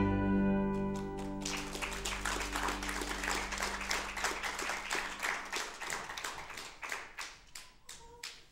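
A pipe organ's final sustained chord releases and dies away in the room's reverberation. About a second in, the congregation starts applauding, and the clapping thins out and stops near the end.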